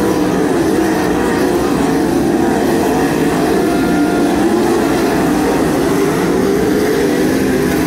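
A field of winged sprint cars racing on a dirt track, their 410 cubic-inch V8 engines running hard together in a loud, steady drone of several pitches that rise and fall against each other as the cars go round.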